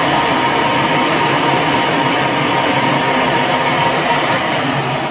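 Metal lathe running under power, turning a steel shaft while a cutting tool takes a pass along it and throws off chips. A loud, steady mechanical running noise with a steady tone through it.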